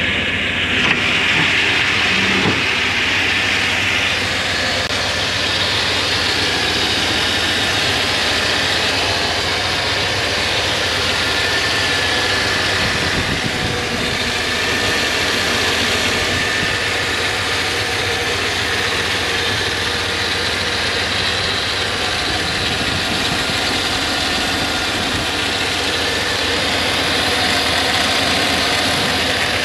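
Engine of a 1989 Chevrolet C2500 pickup truck idling steadily.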